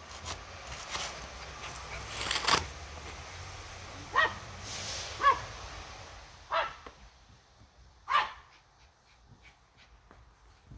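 A dog barking four times, short single barks a second or so apart, after a brief burst of noise about two seconds in.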